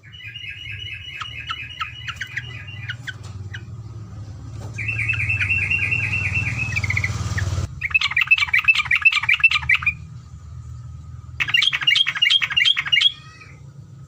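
Olive-winged bulbul (cucak terocok) singing long rapid trills: four bouts of quickly repeated notes, each a second or more long. A low steady hum runs underneath.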